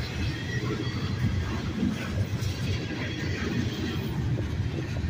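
Freight train of centerbeam flatcars loaded with lumber rolling past: a steady rumble of steel wheels on rail.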